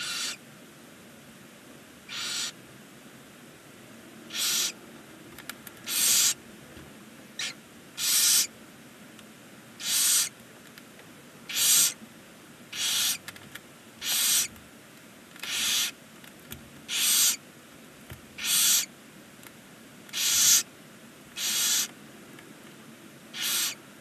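Barn owl giving a run of short, breathy hissing screeches, one about every one and a half seconds. These are the rasping hiss or 'snoring' calls barn owls make at the nest.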